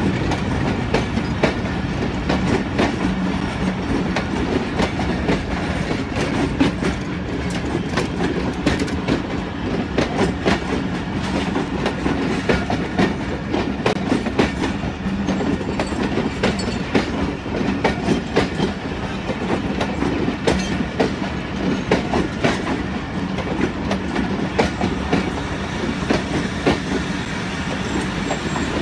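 Pakistan Railways passenger coaches rolling past close by: a steady rumble with repeated clickety-clack of the wheels over rail joints.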